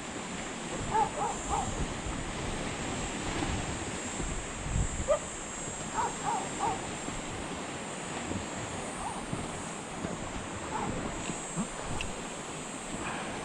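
Steady surf and wind noise at the shore, with a distant animal giving short calls in two quick runs of three, about a second in and about six seconds in.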